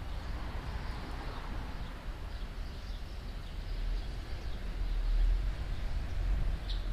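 Outdoor background of a steady low rumble, with faint short bird chirps scattered through it and one clearer chirp near the end.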